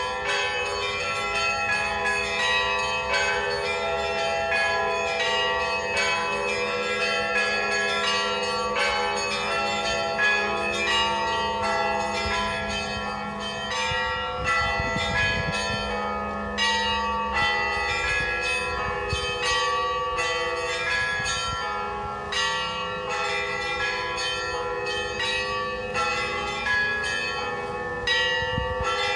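Russian Orthodox church bells ringing for noon: rapid, dense strokes of small bells over the long ringing hum of larger bells. The deepest hum fades out a little past the middle.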